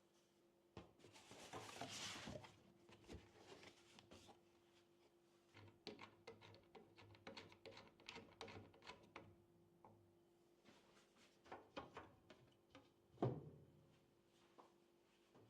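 Faint clicks, taps and light rustling of computer hardware being handled, with one louder knock about two-thirds of the way through.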